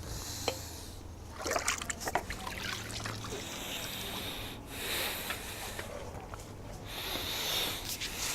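Washing greenhouse glass by hand: water splashing and dribbling, with a cluster of scrapes and knocks from the scrubbing a second or two in.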